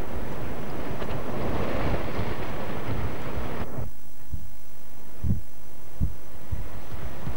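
Wind buffeting a camcorder microphone outdoors: a dense rushing rumble that cuts off suddenly about halfway, followed by a few low thumps of gusts striking the mic.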